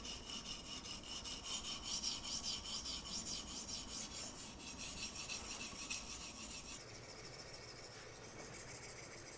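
Oiled Barite T2 220-grit synthetic sharpening stone on the guide arm of a TSPROF K03 system, stroked back and forth in quick succession over a CPM 20CV steel knife edge: a steady scratchy rasping, a little softer for the last couple of seconds. This is the first side being ground until a burr forms.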